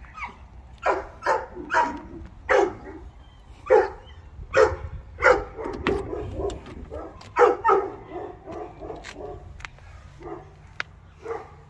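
Dogs barking repeatedly, about a dozen short barks at uneven intervals, some in quick pairs.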